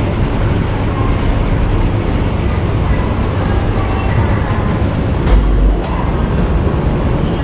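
Toshiba escalator running as it carries the rider up, a steady mechanical rumble, with a brief low thump about five seconds in.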